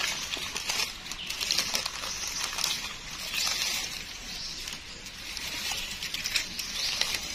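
Dry forest leaf litter rustling and crackling, with many scattered small clicks and snaps, as it is disturbed on the ground.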